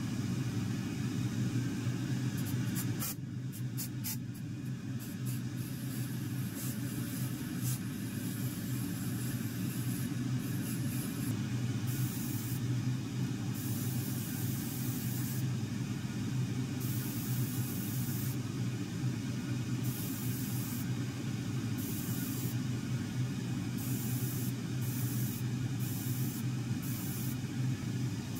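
An airbrush hissing as it sprays paint, in short stutters at first and then in longer on-off bursts of about a second each. A steady low machine hum runs underneath.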